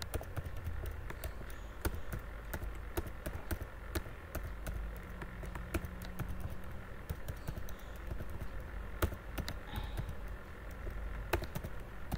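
Computer keyboard keys being pressed: scattered, irregular clicks of key-combination shortcuts, over a low background hum.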